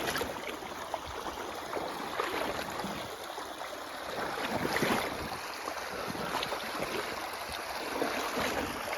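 Rain and snowmelt runoff rushing steadily along a flooded ditch channel, with a few brief splashes from rubber muck boots wading in the water.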